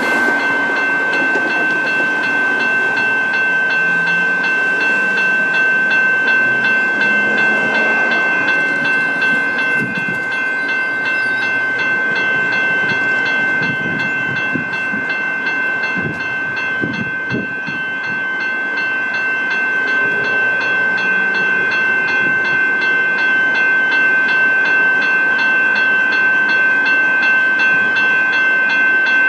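Level crossing warning bell ringing steadily with a regular repeated strike as a train passes over the crossing, its wheels clattering over the rail joints around the middle.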